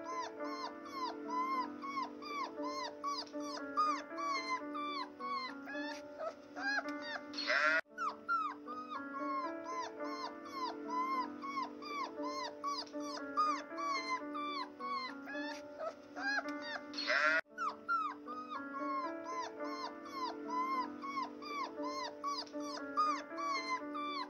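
Puppies squeaking and whimpering in quick succession, many short high yelps, over background music with held chords. The same stretch of about ten seconds repeats.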